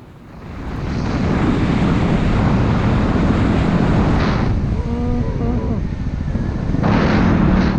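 Dual-sport motorcycle on the move: heavy wind rush on the microphone over the running engine, building up in the first second, with the engine's note showing through briefly about five seconds in.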